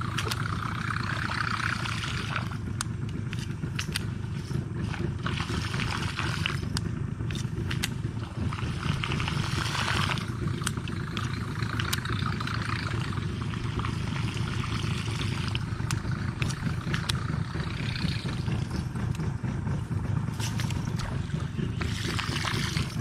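Baitcasting reel being cranked in spells of a few seconds as a lure is retrieved, a whirring hiss that starts and stops, over a steady low rumble, with scattered sharp clicks.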